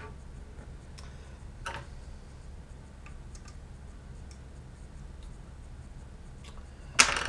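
Scattered light clicks and taps of metal kit parts and tools being handled on a workbench over a steady low hum, then a loud clatter near the end.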